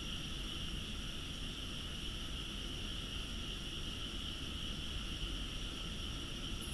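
Steady night chorus of frogs and insects from nearby rice paddies, holding several constant high pitches, over a low background rumble.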